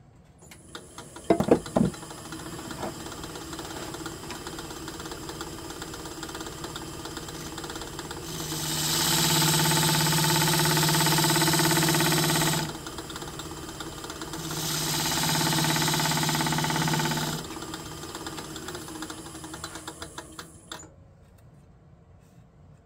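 Wood lathe spinning a cherry burl plate blank, with a few loud knocks about a second in. A turning gouge cuts the spinning wood twice, for about four seconds and then about three, each pass much louder than the lathe's running hum. The lathe then winds down and stops near the end.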